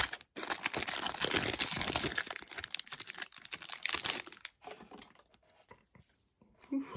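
A Topps baseball card pack's wrapper being torn open and crinkled by hand. The crinkling dies down after about four and a half seconds, leaving a few faint rustles.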